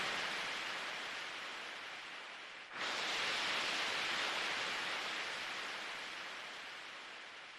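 Rushing, wind-like hiss with no notes in it, left over after the song's music ends. It fades, swells again suddenly about three seconds in, then slowly dies away.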